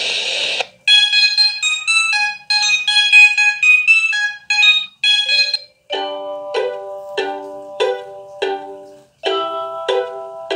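Mobile phone ringtones playing back to back: a bright, high chiming melody of short repeated notes, then about six seconds in a different, lower tune of plucked notes and chords.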